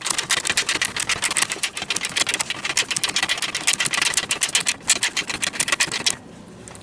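Ratcheting combination wrench clicking rapidly as it runs a nut down on the rear suspension hardware, stopping about six seconds in.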